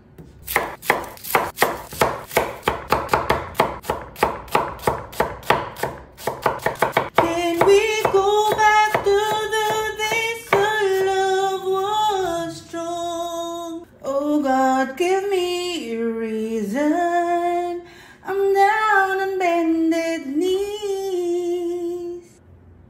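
A kitchen knife chops a red onion on a wooden board in quick, even strokes, about four a second, speeding up near six seconds. From about seven seconds a woman sings a melody over the chopping, and the chopping stops a few seconds later.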